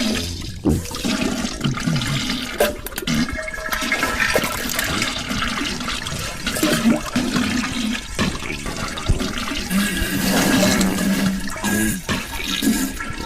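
Toilet flushing, with water rushing through the whole stretch.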